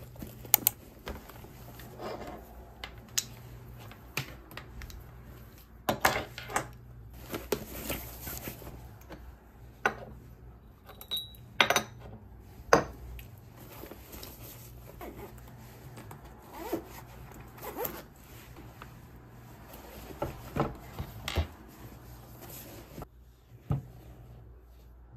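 Laptop slid into a padded fabric sleeve and desk items packed away: scattered sharp clicks and knocks against the wooden desk with fabric rubbing, over a steady low hum.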